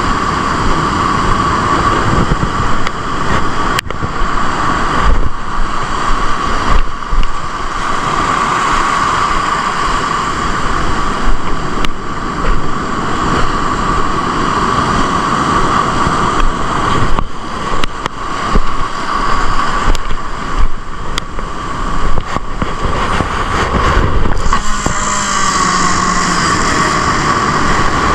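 Wind buffeting the microphone over the wash of surf, under a constant high hum.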